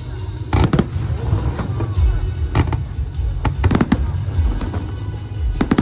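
Aerial fireworks bursting: sharp bangs and crackles in clusters over a continuous low rumble, with music playing underneath.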